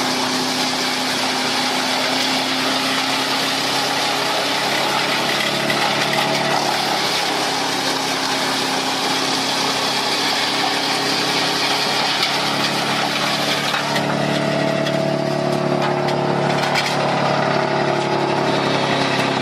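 Engine-driven wood chipper running steadily under power, its engine note shifting about fourteen seconds in.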